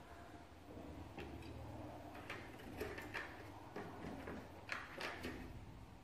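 Faint scattered clicks and light taps, about half a dozen of them, over a low steady hum.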